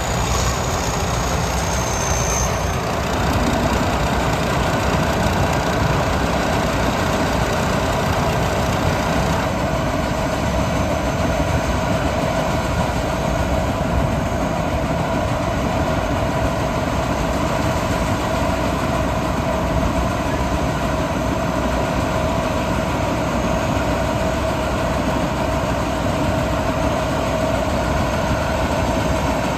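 Rice combine harvester running steadily as it works the field: a continuous engine rumble with a constant whining tone from the machinery.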